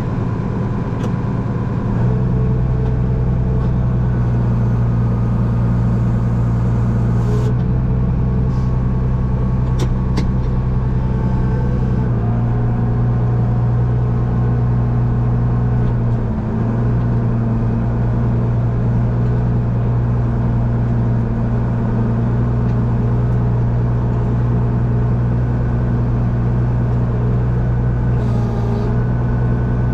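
Farm tractor engine running steadily in a constant low drone, its note shifting slightly about two seconds in and again around twelve seconds in.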